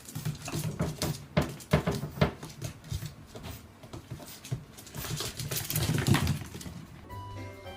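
Irregular knocks and taps, the sound of an animal moving about on hard surfaces, louder about six seconds in.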